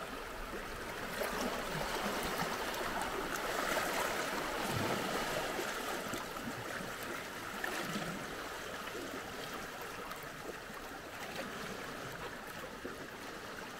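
Seawater washing and trickling over rocks at the shoreline: a steady rush of water that swells a little a few seconds in, then eases.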